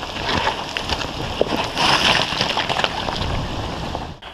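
Footsteps crunching and scuffing over loose stones and gravel in a creek bed, with wind rumbling on the microphone; the sound cuts off suddenly just before the end.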